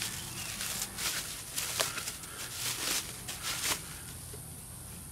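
Plastic bubble wrap crinkling and rustling in short bursts as it is pulled off a part, settling a little before the end.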